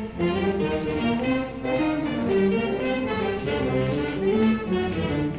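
Middle-school jazz band playing, with brass horns carrying the tune over a steady beat struck about twice a second.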